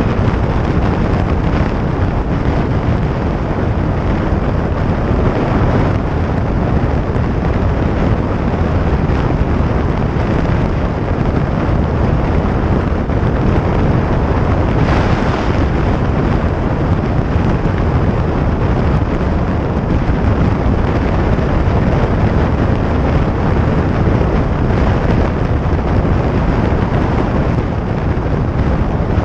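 2017 Harley-Davidson Sportster Iron 883's air-cooled V-twin running steadily at highway speed, mixed with heavy wind noise buffeting the microphone.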